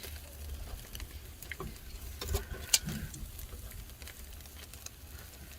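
Lamb chops and a foil vegetable pack sizzling on a charcoal grill, with irregular crackles and pops and one sharper pop a little before three seconds in, over a steady low rumble.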